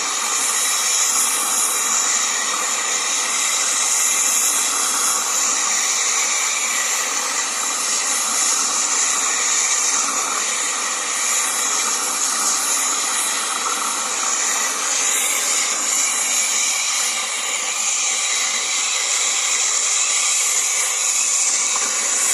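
Gas blowtorch flame hissing steadily, heating a washing-machine motor pulley so that it expands enough to fit onto the shaft.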